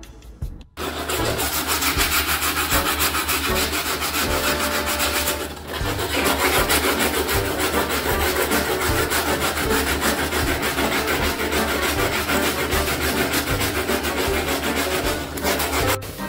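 Rapid, steady scrubbing and rubbing of a white shoe being cleaned by hand, with a brief break about five seconds in.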